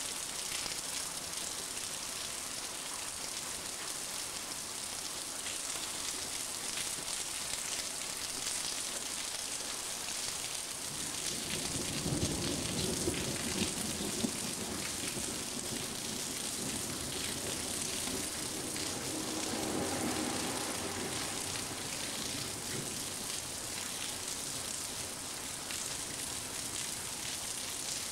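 Heavy rain falling steadily, with low rolls of thunder: one swelling about eleven seconds in and lasting several seconds, and a weaker one a little later.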